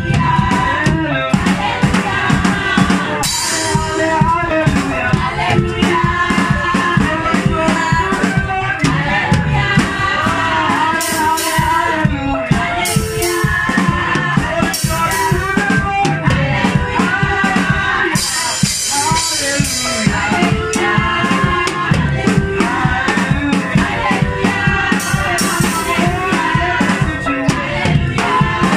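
A child playing a drum kit along with music that carries a melody, with drum hits throughout. Several stretches of cymbal wash come in, the longest about 18 seconds in, lasting around two seconds.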